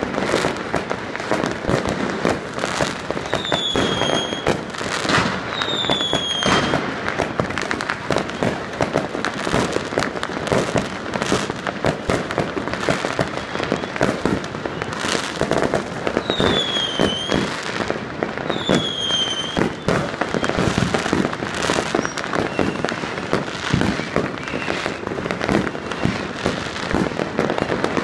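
New Year's fireworks and firecrackers going off: a continuous barrage of overlapping bangs and crackling. Short high falling whistles cut through it twice in pairs, a few seconds in and again past the halfway point.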